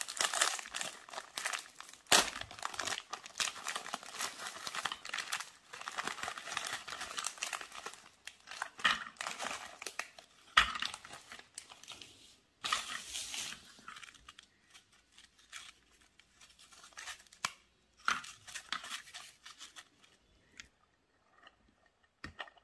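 A foil-lined plastic biscuit wrapper crinkling and tearing as it is pulled open by hand. The crinkling then turns sparse, with rustles and a few sharp clicks as biscuits are handled on the plate, and dies away near the end.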